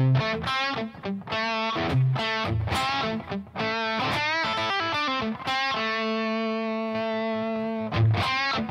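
Electric guitar played through a Spark modelling amp with a distorted tone and the compressor's gain cranked, which gives more compression, sustain and distortion. Single notes with bends and vibrato, and one long note held for about two seconds in the second half.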